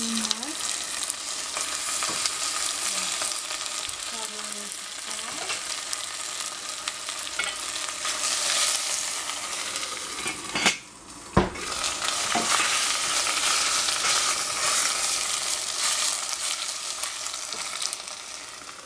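Green vegetables sizzling in hot oil in a stainless steel saucepan while being stirred with a wooden spatula. About ten seconds in the sizzle drops briefly and the steel lid clanks twice against the pot before the sizzling resumes.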